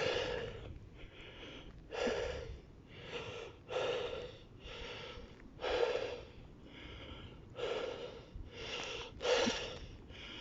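A man breathing hard close to the microphone, a loud breath about every one and a half to two seconds, out of breath from exertion.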